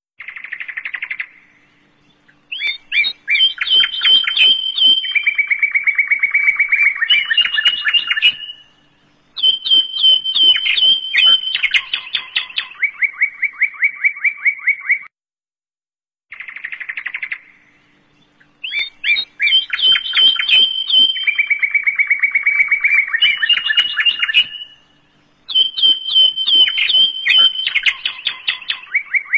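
Rapid bird-like chirps and trills in quick runs of repeated notes, broken by short pauses. It is a backing soundtrack that loops, the same sequence coming round again about every sixteen seconds.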